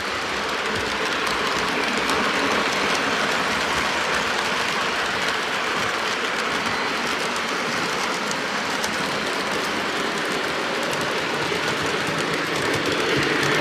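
Lionel O gauge model trains running on three-rail track: a steady rolling rumble and clatter of the wheels, with faint ticks as they pass over the rail joints.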